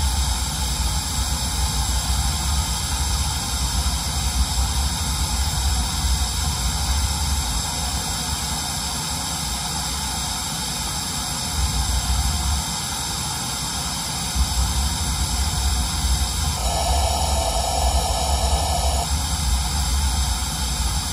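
Steady test noise, a full-range hiss like pink noise, played through the line-array PA and subwoofers while the system is being tuned. The deep bass drops out for about a second and a half around twelve seconds in, and a midrange band grows louder for about two seconds near the end, as the tuning settings change.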